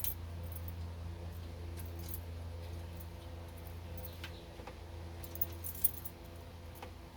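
Keys jingling and small metal clicks as a key and paper clip work a Ford steering-column ignition lock cylinder, over a steady low hum.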